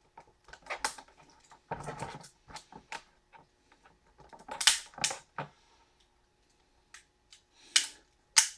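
Small plastic knobs on a CRT deflection yoke being pried and snapped off by hand: irregular sharp clicks and snaps with short handling scrapes, the loudest snaps about halfway through and twice near the end.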